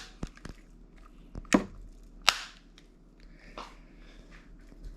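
Hard plastic clicks and snaps from a handheld remote control's casing being pressed and snapped together, a handful of sharp knocks with two loud ones about a second and a half and two seconds in.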